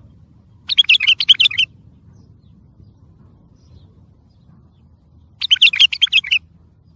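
Wild bulbul singing two quick phrases of rapid warbled notes, each about a second long, one about a second in and the other near the end, over a faint low hum.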